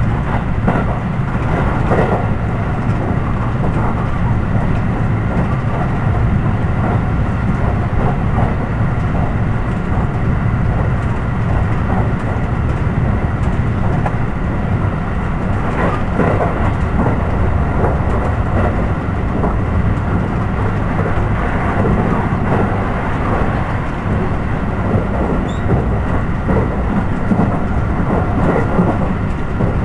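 Steady rumble and rattle of an electric train running at speed, heard from inside the carriage, with a few louder knocks from the track.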